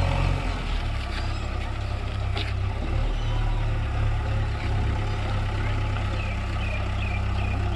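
Heavy diesel engine running steadily with a low drone, dropping back from a louder run right at the start.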